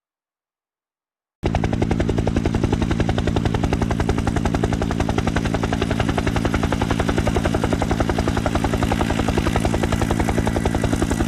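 Helicopter sound effect: fast, even rotor chopping over a steady engine drone, starting abruptly after silence about a second and a half in.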